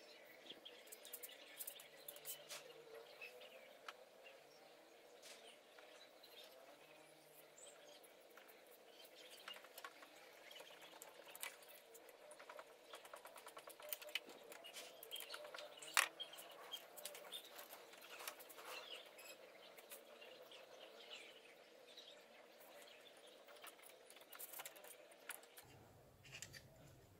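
Faint scattered clicks, light metal taps and scrapes of hand work fitting a rebuilt ABS/ESP unit and its brake lines, with one sharper click a little past halfway. Small high chirps come and go alongside.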